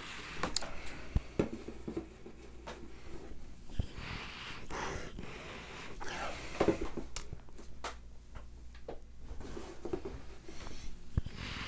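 A person sniffing the aroma of a beer with his nose in the glass: several soft, hissy inhalations a couple of seconds apart, with a few faint clicks between them.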